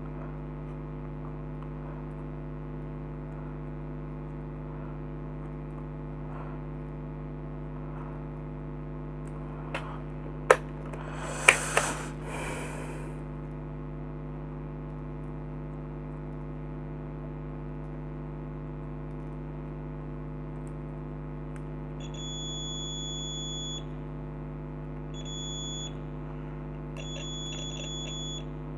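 Digital multimeter beeping three times as its probes are put to the nebulizer motor's coil: a high steady tone about two seconds long, then a short one, then one about a second and a half long. Before the beeps there are a few sharp clicks and a brief rattle, over a steady electrical hum.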